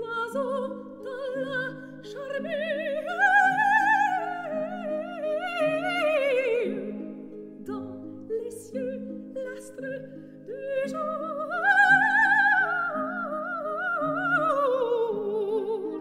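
Operatic soprano singing over an orchestra holding steady chords. Her line, with a wide vibrato, rises and then falls twice in long phrases.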